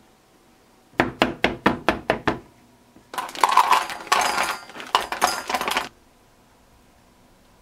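Chunks of white chocolate dropping into a stainless steel bowl: a quick run of about seven sharp clicks, then a denser clattering rattle for nearly three seconds as more pieces pour in from the packet.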